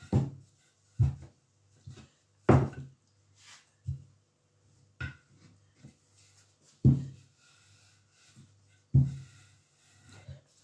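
Wooden rolling pin rolling and knocking on a wooden pastry board as dough is rolled out: a series of dull wooden knocks at uneven gaps of about one to two seconds, the loudest about two and a half seconds in.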